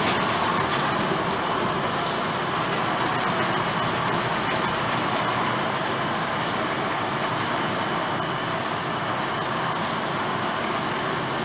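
A small boat's outboard motor running steadily, mixed with the wash of water.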